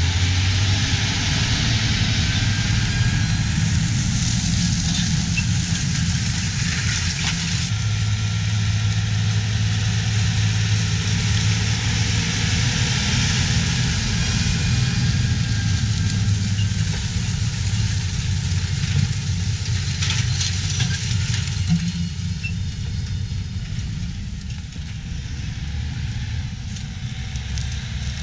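John Deere 9410R tractor's six-cylinder diesel engine running steadily under load as it pulls a vertical-tillage disc through corn stalks, with an even hiss over the low engine hum.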